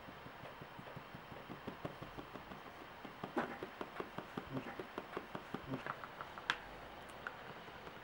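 Rapid light tapping of a sponge dabbing acrylic paint onto a plastic phone case, about five dabs a second, louder in the middle, with one sharper click near the end.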